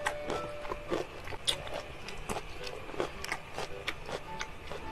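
Metal spoon clinking and scraping against a glass bowl as sauce-soaked rice and mapo tofu are stirred and scooped, mixed with wet chewing and mouth clicks, in irregular sharp clicks. Faint background music with a few short held notes underneath.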